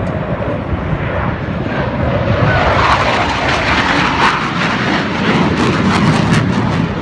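Airplane flying past; its engine noise swells about two seconds in and stays at its loudest through most of the rest.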